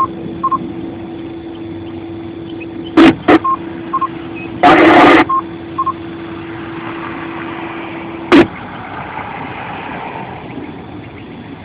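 Amateur two-way radio receiver idle between transmissions: a steady hum with sharp squelch clicks about three seconds in and again near the end, a short loud burst of static about five seconds in, and a few faint short beeps.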